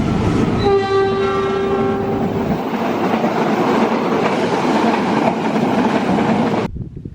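A passing train's steady rail noise, with a shrill locomotive horn blast of about two seconds starting about a second in. The noise cuts off suddenly near the end.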